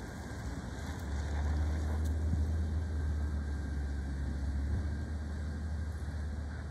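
Low, steady engine rumble of a vehicle, coming up about a second in and holding.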